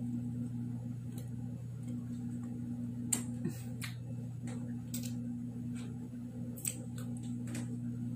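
Someone chewing a crisp chocolate-coated caramel biscuit bar: scattered sharp crunching clicks, over a steady low hum.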